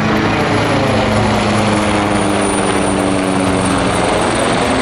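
AgustaWestland AW139 twin-engine helicopter flying overhead: steady rotor and turbine noise with a high whine, the pitch sinking slowly as it passes.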